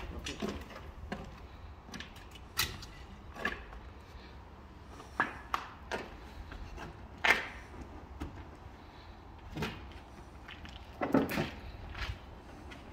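Scattered knocks and clicks of a car door being handled and people moving at it, irregularly spaced, the sharpest about seven seconds in, over a faint low steady hum.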